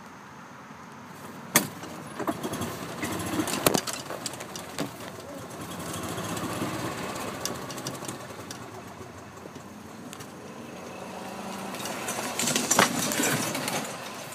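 Golf cart driving over grass: a rising and falling rumble and rattle, with sharp knocks about a second and a half in, near four seconds, and a loud cluster near the end.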